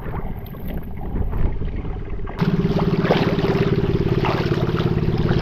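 Small outrigger boat's motor running steadily. It gets abruptly louder about two and a half seconds in.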